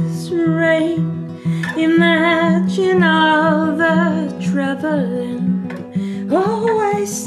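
Live song: an acoustic guitar picked in a steady repeating pattern under a woman singing a slow melody with vibrato. The voice slides up to a held note near the end.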